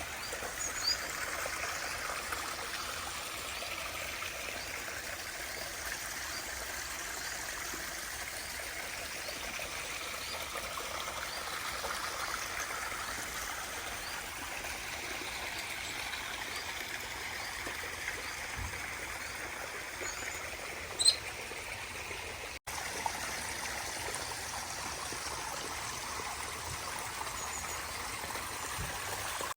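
Water running steadily down a rock-lined garden stream and waterfall, a continuous trickling and splashing, with aviary birds chirping now and then above it. One sharper, louder chirp comes about two-thirds of the way through.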